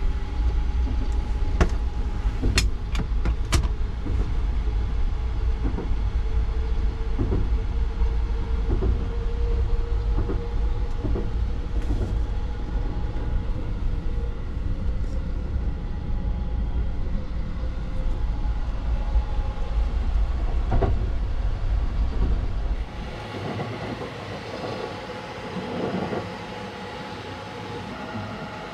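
Sunrise Seto sleeper train running, heard from inside a sleeping compartment: a heavy low rumble with scattered knocks and clicks. About 23 seconds in the rumble drops away sharply, leaving a quieter hum.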